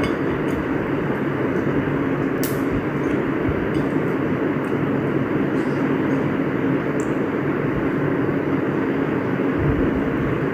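A steady droning hum, like a motor or fan running, at an even level throughout, with a few faint clicks on top.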